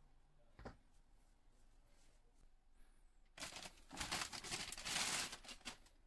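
A plastic bag rustling and crinkling for about two and a half seconds, starting about three and a half seconds in, as a honeycomb solid scooter tyre is taken out of it; a soft knock comes about half a second in.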